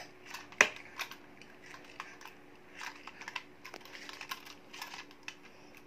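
Light plastic clicks and clacks from a toy boxing glove on an extending plastic scissor arm as it is pushed out and handled, with one sharper clack under a second in.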